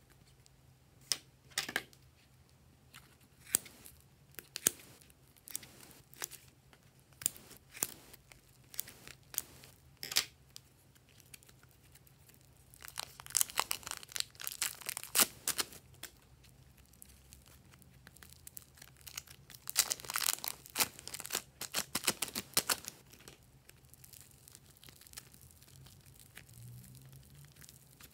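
Thin plastic packets of modelling clay crinkling and tearing as they are opened and squeezed empty by hand: scattered sharp crinkles at first, then two dense spells of crackling plastic.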